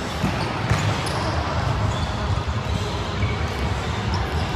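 Indoor volleyball play in a large gym hall: a few sharp ball hits in the first second and short high squeaks, over a steady din of the hall.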